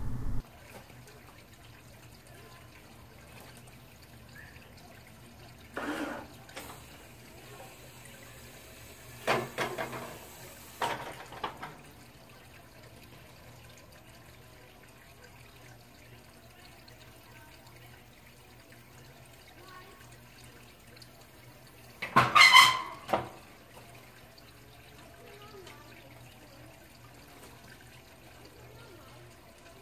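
Electric wheelchair platform lift running with a faint, steady low hum as its folded platform comes down, with a few sharp knocks and a louder clatter about two-thirds of the way through.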